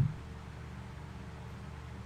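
A soft low thump right at the start, then a steady low hum.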